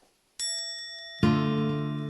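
Music: after a brief near-silent moment, a pitched instrumental note sounds, then a louder, lower chord a little past a second in, each ringing on and fading slowly.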